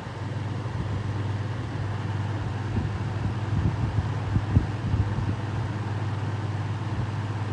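Lasko Ultra Deluxe box fan running on low speed: a steady motor hum with the even rush of moving air. A few soft low thumps come in the middle.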